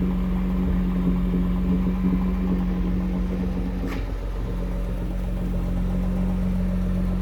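Nissan GT-R's twin-turbo engine idling steadily in park, a low even hum with no revving, and a brief tick about four seconds in.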